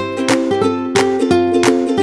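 Background music: a light plucked-string tune, with notes struck at an even pace of about three a second.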